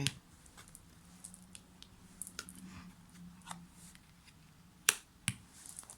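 Faint clicks and soft rustling of tarot cards being handled, with one sharper click about five seconds in.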